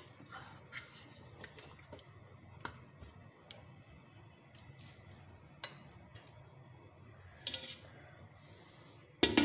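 Wooden spatula stirring a wet mutton curry in a metal karahi, with scattered light knocks and scrapes against the pan's sides. Near the end comes a louder clatter as the glass lid is set on the pan.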